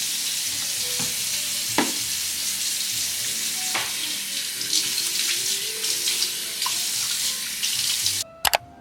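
Water running steadily, a loud even splashing hiss that stops abruptly near the end, followed by two sharp clicks.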